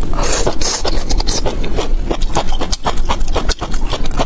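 Close-miked eating of stir-fried bamboo shoots: a hissing slurp as the strips are drawn into the mouth near the start, then fast, wet chewing with many quick clicks and smacks.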